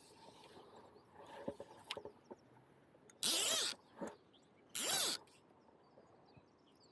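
Fly reel's click-and-pawl ratchet buzzing in two short bursts, about half a second each, as line is pulled off the spool, with a brief click between them.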